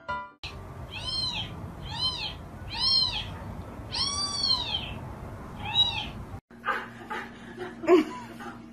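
A pet's meow-like cries, five in a row, each rising then falling in pitch, the fourth drawn out longest.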